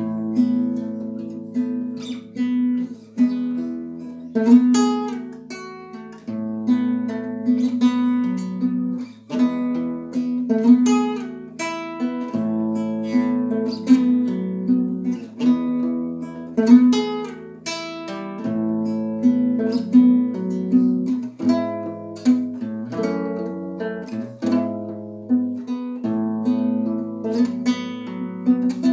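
Acoustic guitar being played solo, plucked and strummed chords with a moving bass line, no singing.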